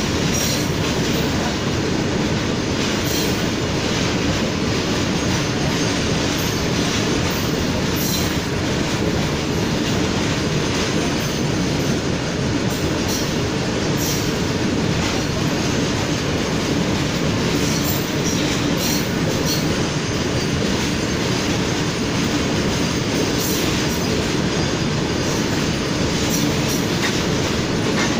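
Long goods train's wagons rolling past close by: a steady rumble of steel wheels on rail, broken by frequent irregular clicks and clanks.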